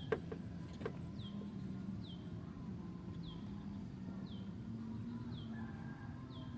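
A bird repeating a short, high, downward-sliding call about once a second, over a steady low hum. Two sharp clicks come in the first second.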